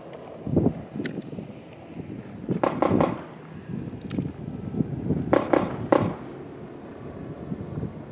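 Gunshots at an outdoor shooting range, in three groups of bangs about half a second, three seconds and five and a half seconds in.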